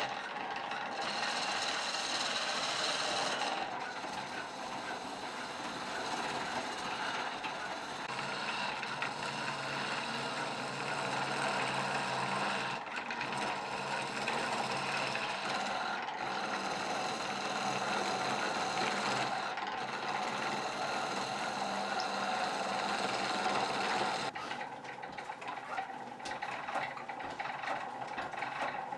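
A hand-held turning tool cutting a wooden chisel handle spinning on a treadle lathe: a steady scraping hiss of shavings coming off, broken off abruptly several times. About 24 seconds in it gives way to a quieter, lighter clatter of the treadle lathe's mechanism running.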